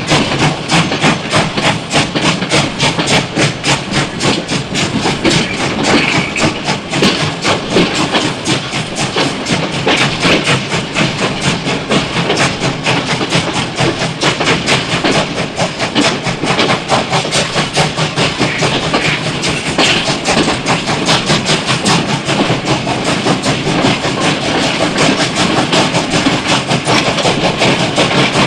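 Steam locomotive running, a fast steady rhythm of beats over a continuous steam hiss.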